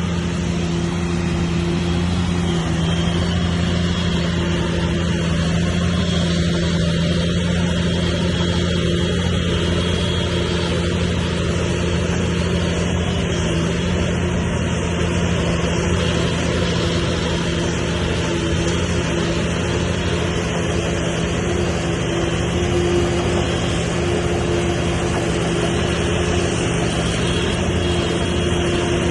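Bulldozer diesel engine running steadily at constant speed, with a deep, even drone.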